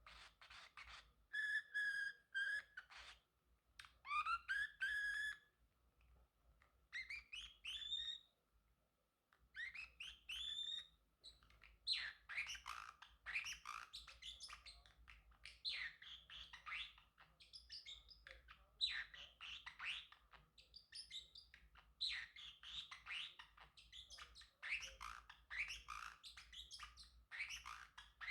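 Male Pacific parrotlet chirping: a few separate calls in the first seconds, some with a held note or a rising glide, then a long run of quick chirps close together.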